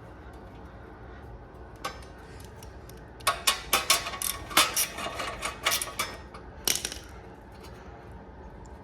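Irregular sharp metallic clicks and clinks of a hand tool working the chain-cover bolts on a mini bike engine: one click about two seconds in, then a quick run of about ten between roughly three and seven seconds.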